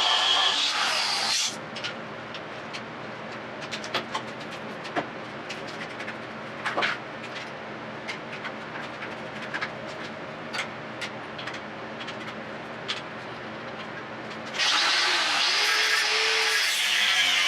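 A power grinder working on steel stock, stopping about a second and a half in. It is followed by a long quieter stretch of scattered metallic clicks and knocks, and the grinding starts again near the end.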